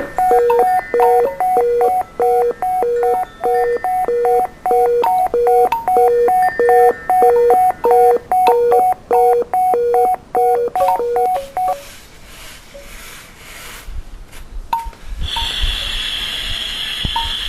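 Electronic beeping in a two-note pattern, about two beeps a second, that stops abruptly about twelve seconds in. A quieter noisy stretch follows, then a steady high ringing tone near the end.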